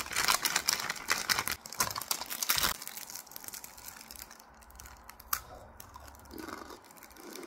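Crunchy snack being eaten close to the microphone: dense crackly crunching and crinkling for about three seconds, then fainter, with one sharp click a little after five seconds.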